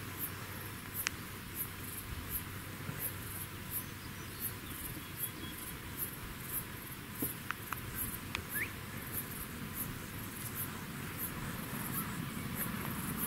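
An insect chirping in a very high pitch, short pulses about three every two seconds, over a steady outdoor background hiss, with a few faint clicks and one brief rising chirp past the middle.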